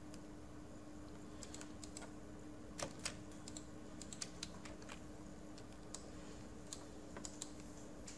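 Computer keyboard keys and mouse buttons clicking, a few scattered keystrokes and clicks at a time, over a faint steady hum.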